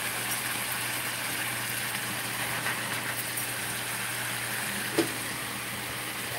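Blue crabs simmering in garlic butter sauce in a frying pan: a steady sizzling hiss over a low steady hum, with one sharp click about five seconds in.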